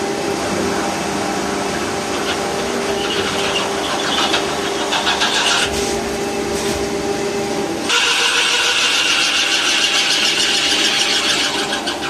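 CNC turning lathe cutting an SS316 stainless steel workpiece under flood coolant: a steady machine hum mixed with hissing cutting and coolant spray. About eight seconds in the sound changes abruptly to a louder, brighter, higher-pitched hiss.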